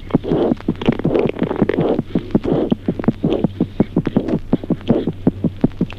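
Normal newborn heart sounds heard through a stethoscope: rapid, even first and second heart sounds, with a rushing noise between some of the beats and a steady low hum beneath.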